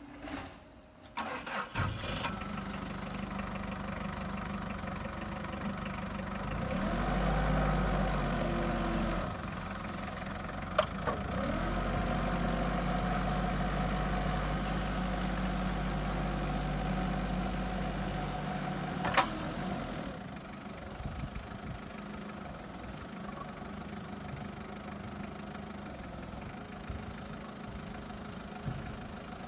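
Toyota 6FDF25 forklift's diesel engine starting, then idling. It revs up twice for stretches of several seconds, with a gliding whine, while the hydraulic mast raises the forks, then drops back to idle. A sharp clunk comes in the middle and another, louder one later on.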